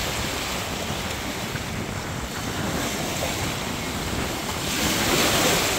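Small waves breaking and washing up the sand at the water's edge: a steady surf hiss that swells as a wave breaks about five seconds in, with wind buffeting the microphone.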